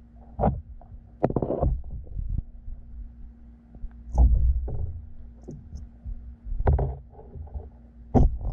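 Muffled water sounds heard through a submerged camera: about five dull, irregular thumps and sloshes as a hooked plastic worm lure is moved and dropped in the shallow pool, over a faint steady hum.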